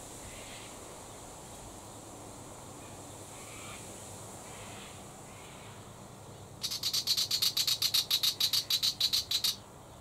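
Willy wagtail giving its harsh, rapid chattering scold call. It is an even rattle of about seven notes a second that starts about two-thirds of the way in and lasts some three seconds. A few faint bird calls come before it.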